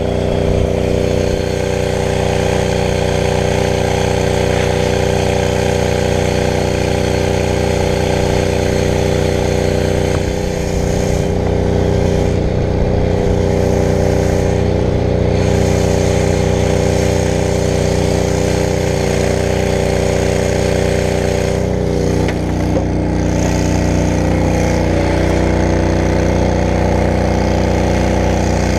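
Brush fire truck's engine and fire pump running steadily under load, a constant drone with small shifts in pitch about 11 and 22 seconds in.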